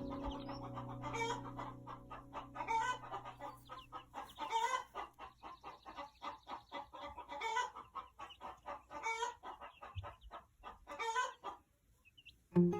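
Hens cackling their egg song after laying: a quick stream of short clucks broken every couple of seconds by a louder drawn-out squawk, with several birds calling together.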